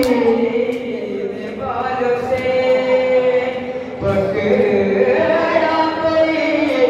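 A male voice chanting a noha, a Shia mourning lament, through a microphone, in long held mournful phrases with two short breaks.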